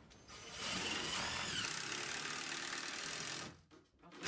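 Cordless drill driving screws into a timber frame: the motor runs for about three seconds, its pitch rising and falling, stops, and starts again near the end.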